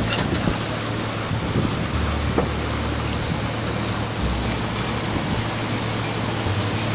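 A river passenger boat's engine running steadily, with a low hum under a constant rush of wind and water noise.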